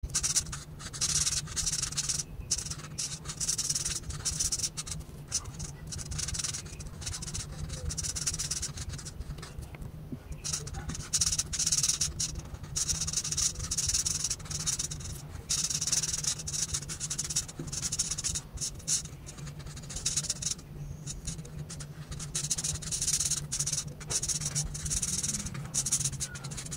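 Marker tip rubbing across paper in repeated back-and-forth colouring strokes, a soft scratchy hiss that stops briefly now and then, over a steady low hum.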